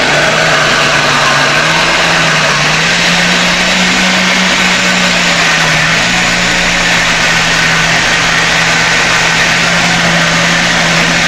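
Electric countertop blender switched on and running steadily and loudly, blending curdled milk curds with margarine and salt into a creamy cheese spread (requeijão). Its motor note climbs a little a few seconds in, then settles.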